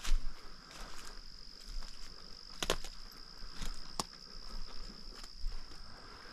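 Slow footsteps on dry leaf litter with a few sharp crackles of twigs, over a steady high-pitched insect drone.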